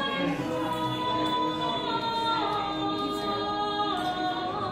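A man and a woman singing a duet, holding long sustained notes that step down in pitch a couple of times, with a slight vibrato near the end.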